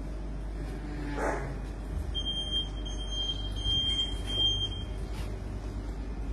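Electromagnetic library security gate alarm sounding: a high-pitched steady beep that starts about two seconds in and comes in a few pulses over about two and a half seconds, set off as a person walks through the gate. A steady low hum runs underneath.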